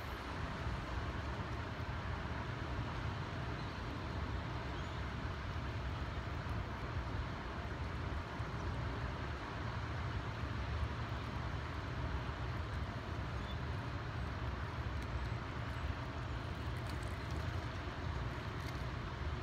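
Steady low rumble and rush of water pouring through the dam, even in level throughout, with no distinct events.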